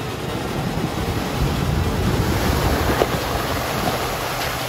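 Jeep Wrangler JL Rubicon driving through a shallow river crossing: water splashing and surging around the tyres over the engine's steady running, loudest around the middle.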